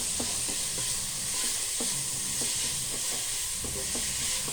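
Sliced onions and ginger-garlic-green chilli paste sizzling in hot oil while a spoon stirs and sautés them, scraping the pan every so often.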